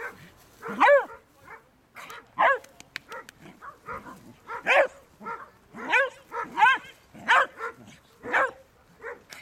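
Small shaggy dog barking in short, high-pitched barks, about seven loud ones roughly a second apart with fainter yaps between, while it plays.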